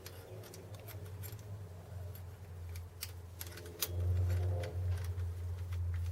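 Scattered light metallic clicks and clinks of small metal parts and tools being handled while fitting a screwed-on mounting strap, over a steady low hum that gets louder about four seconds in.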